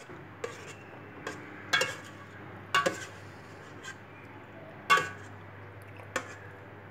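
Metal spoon stirring a thick chicken stew in a stainless steel pot, the spoon clinking against the pot several times. The loudest knock comes about five seconds in.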